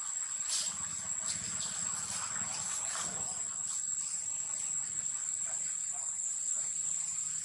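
Insects droning steadily on one high note, with a few short faint ticks over it.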